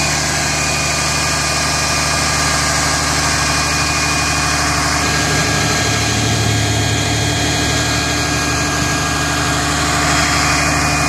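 Heavy tow truck's diesel engine idling steadily at close range.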